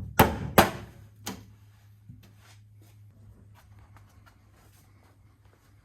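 Two sharp knocks within the first second and a third, softer one soon after, then a few faint scattered clicks and taps of objects being handled, over a steady low hum.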